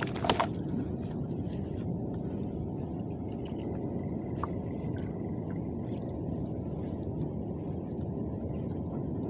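Steady low rumble aboard a small fishing boat at sea, with a sharp clack about a third of a second in and a few faint ticks after it.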